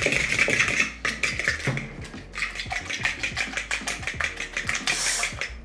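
Eggs being beaten by hand in a plastic mixing bowl: rapid clicking and scraping strokes of the utensil against the bowl. A brief high rustle near the end.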